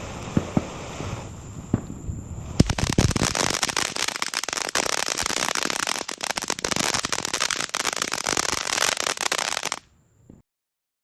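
Fireworks going off: a few scattered pops, then a dense, rapid crackling that starts sharply and runs for about seven seconds before cutting off suddenly.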